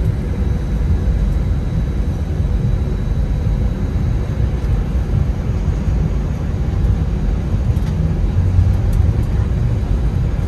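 Airbus A320 cabin sound while taxiing onto the runway: a steady low rumble from the jet engines running at low power, with faint steady tones above it.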